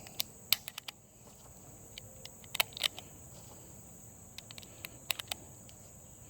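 Scattered sharp clicks and small metallic knocks from handling a Glock pistol and a loaded magazine. A steady high-pitched insect buzz runs underneath.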